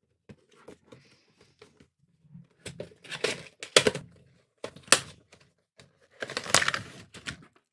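Action-figure packaging being opened and handled: a cardboard box and plastic tray giving sharp clicks, crinkling and tearing rustles in several bursts, the loudest about three, four and five seconds in and again near the end.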